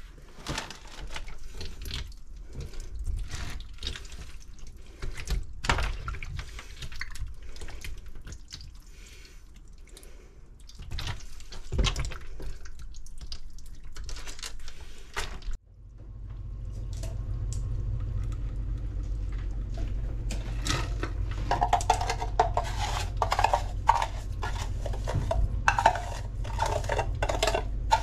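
Freshly caught octopuses being handled in a stainless steel kitchen sink: irregular wet knocks and clatter against the metal. About halfway through, the sound changes abruptly to a steady low hum with the clatter of a metal bowl as salt is poured over the octopus.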